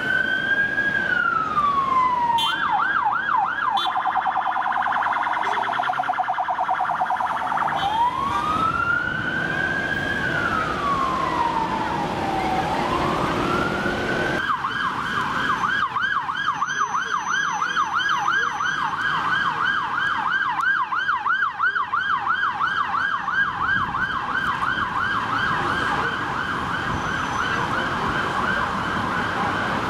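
Electronic sirens of London police vans on an emergency run, switching between a slow rising-and-falling wail and a fast yelp of a few cycles a second. The wail plays at the start and again about halfway through; the yelp runs in between and through the second half. Road traffic runs underneath.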